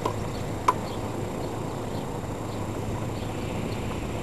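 Steady outdoor background noise with one short sharp click about two-thirds of a second in.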